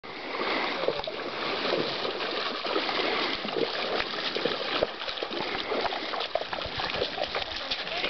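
Pack donkeys and a person wading across a shallow river ford, with many irregular splashes as hooves and feet churn through the water.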